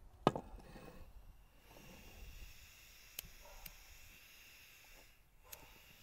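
Handling of a small gas-cartridge blowtorch on a wooden table: a sharp knock about a quarter second in, then a few light clicks over a faint hiss.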